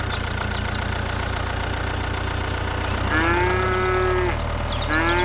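A tractor engine idling steadily with a low, pulsing rumble. Two long cow moos come over it, about three and five seconds in.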